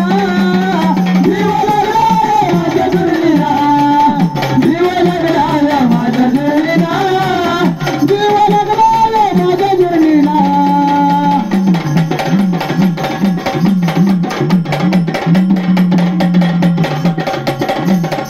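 Marathi gondhal folk music: a singer's gliding melody over drums, giving way about eleven seconds in to fast, steady drumming over a held accompanying tone.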